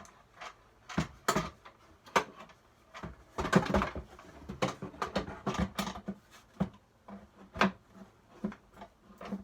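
Irregular knocks and clatter of pieces being handled and set down on a wooden toolbox, with a quicker run of knocks between three and four seconds in.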